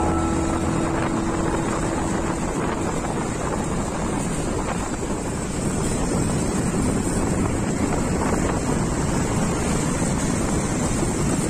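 Wind buffeting the microphone with road and engine noise from a vehicle moving at speed: a steady, even rushing. The last held notes of background music die away in the first couple of seconds.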